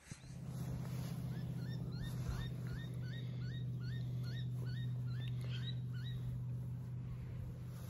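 A steady low hum, with a run of short rising animal chirps repeated about two to three times a second through the middle of it.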